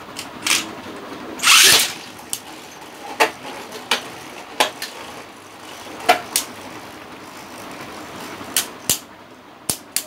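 Two Beyblade spinning tops ripped from their launchers at once: a loud whirring rip about a second and a half in. Then the tops spin in a plastic stadium, clacking sharply against each other and the wall at irregular moments, about once a second.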